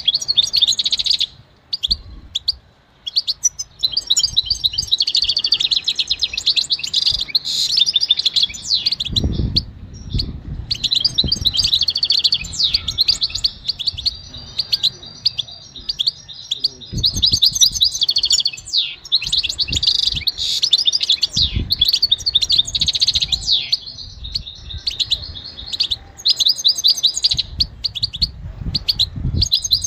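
European goldfinch singing: long runs of fast, high, twittering and tinkling notes broken by short pauses, with a few dull low thumps.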